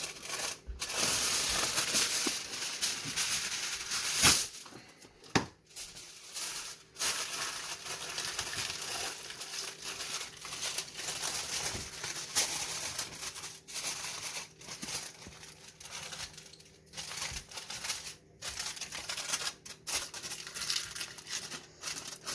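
Aluminium foil crinkling and rustling as it is handled over steak left to rest, in irregular bursts with a sharp crackle about four seconds in.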